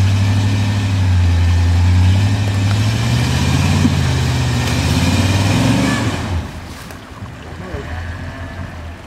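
Off-road SUV's engine running at high revs under load, its pitch climbing a little through the middle. About six seconds in the throttle comes off and the engine drops to a lower, quieter run.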